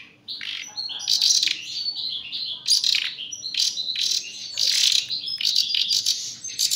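Nightingale chicks giving begging calls while being hand-fed: rapid high-pitched chirps, many overlapping, one after another.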